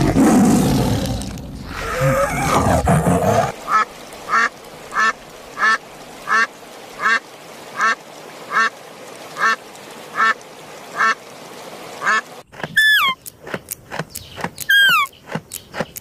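A duck quacking in a steady series, about three quacks every two seconds, for some eight seconds. Before the quacking there is a loud, rough, low noise for about three seconds. Near the end comes a run of sharp clicks and falling whistled calls.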